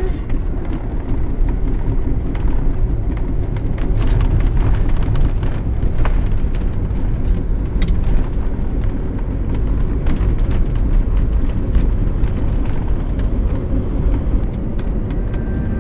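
A vehicle driving along: a steady low rumble of road and wind noise, with a few faint clicks.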